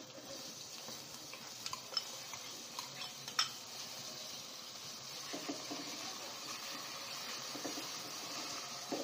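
Chopped onion sizzling in hot oil in a pan, stirred with a utensil that clicks and scrapes against the pan a few times in the first few seconds.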